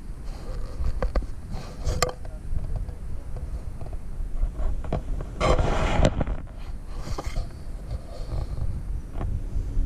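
Wind rumbling on the microphone, with a few scuffs and knocks; the sharpest is about two seconds in, and a louder cluster comes between five and six seconds in.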